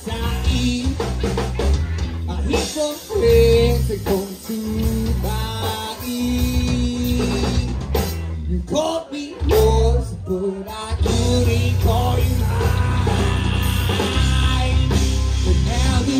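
Live rock band playing at full volume: drum kit, bass and electric guitars, with a bending melody line carried over them.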